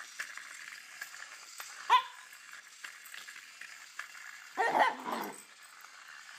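A dog vocalising in play at a small moving robot. There is one short, sharp yip about two seconds in, then a longer, lower whining bark past the middle, and a brief yip at the very end.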